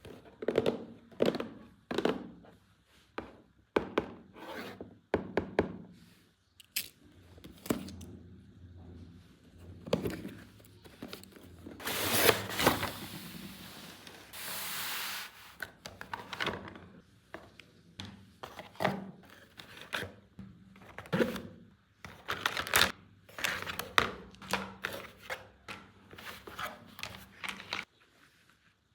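Toy packaging and plastic toy pieces being handled by hand: irregular clicks, taps and thunks with rubbing, and two short tearing sounds a little before halfway.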